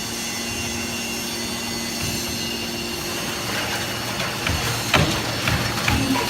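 Automatic aluminium can baler running with a steady mechanical hum; from about halfway, irregular clattering knocks and clicks of metal cans join it.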